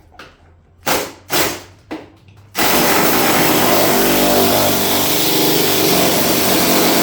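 Power drill-driver backing out a screw from the ATV's plastic body panels: two short trigger bursts, then the motor running steadily for about five seconds.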